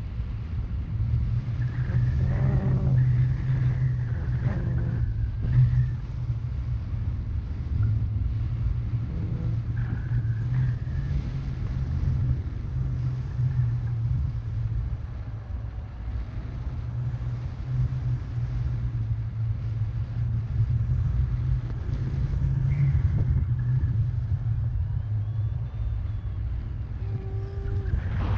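Airflow buffeting the microphone of a paraglider in flight: a steady low rumble of wind noise.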